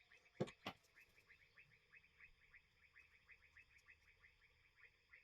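Faint rapid chirping in the background, about six short falling chirps a second, with two sharp clicks about half a second in.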